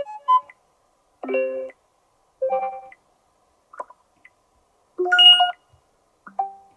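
Sony Xperia 5 III notification tones played one after another: about six short chimes, each under a second long, with short silent gaps between them.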